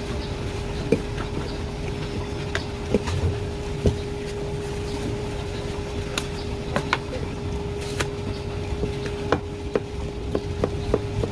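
Knife tapping on a cutting board at irregular intervals, a dozen or so sharp knocks, as sea bass is sliced for sashimi, over a steady hum and low rumble.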